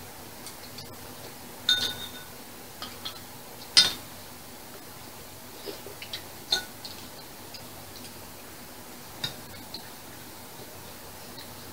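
Metal spoons and chopsticks clinking against ceramic bowls and a metal pot during a meal: scattered short clinks, the loudest about four seconds in, over a faint steady hum.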